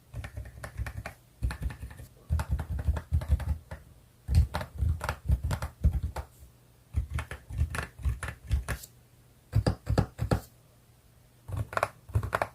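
Typing on an EPOMAKER RT65 mechanical keyboard with HAIMU silent Pink Salt switches: quick runs of damped keystrokes with a low, soft bottom-out, broken by short pauses of about a second.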